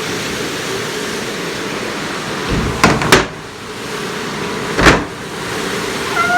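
Hobart commercial dish machine running with a steady hiss of spraying water. Loud clunks come about three seconds in, twice in quick succession, and again near five seconds.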